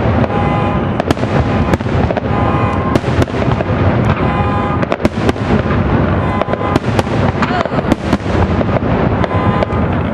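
Fireworks display: aerial shells bursting in rapid, overlapping succession, a continuous barrage of bangs and crackle.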